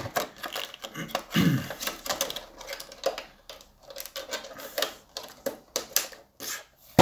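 Clear plastic blister packaging crinkling and clicking as it is pressed shut and fitted back into a small cardboard box: an irregular run of sharp clicks and rustles, with one louder click at the very end.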